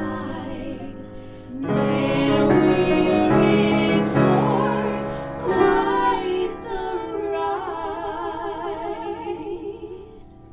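Singing with piano accompaniment, a musical-theatre song ending. New chords come in twice, then a voice holds a long final note with vibrato, and the music dies away near the end.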